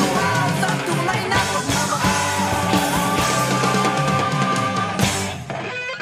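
Background rock music with a steady drum beat and held notes; the drums drop out near the end.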